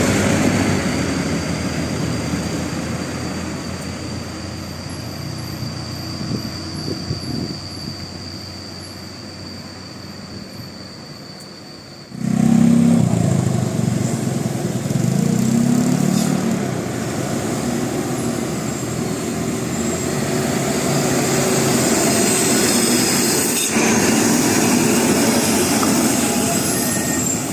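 Large bus engines and road noise: a passing bus fades away over the first twelve seconds, then a sudden cut to a louder bus running close by, its engine giving deep throbbing notes for a few seconds before settling into steady engine and traffic noise.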